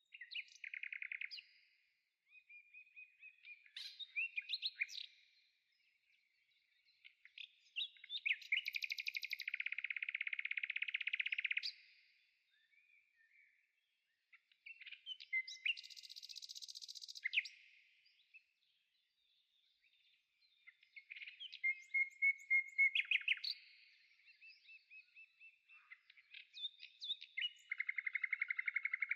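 A songbird singing varied phrases of fast trills and chirps, each a second to a few seconds long, with short pauses between them.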